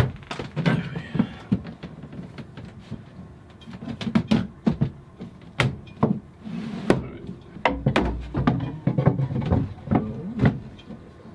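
Irregular wooden knocks and clatter of things being handled and set down, with many sharp clicks scattered throughout.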